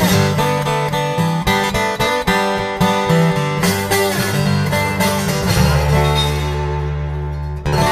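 Background music led by guitar, with plucked and strummed notes over a steady bass line; a new phrase starts just before the end.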